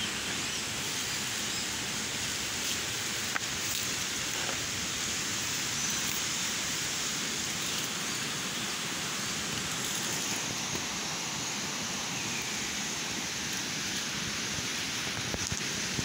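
Steady, even rushing noise of the forest surroundings, with a few faint clicks.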